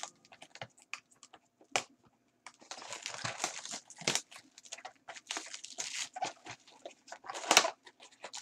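Plastic wrapping being crinkled and torn off a trading-card box as the cardboard box is handled and opened. A few sharp clicks come first, then steady crinkling from about two and a half seconds in, with one loud crackle near the end.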